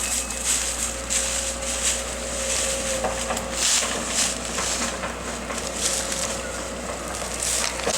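Dry brush and branches crackling and snapping as they are pushed and crushed by a machine, over the steady running of its engine.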